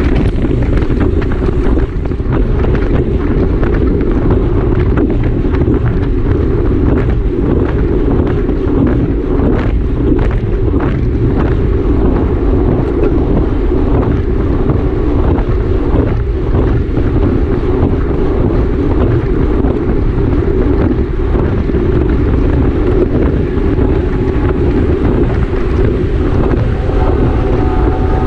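Wind rushing steadily and loudly over the microphone of a bicycle-mounted camera at racing speed in a criterium.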